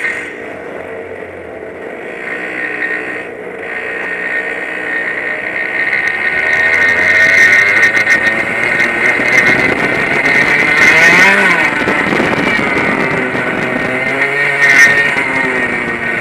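100cc two-stroke kart engine heard from the driver's helmet, pulling away: it grows louder over the first several seconds, then the revs rise and fall repeatedly as the kart is driven through the corners.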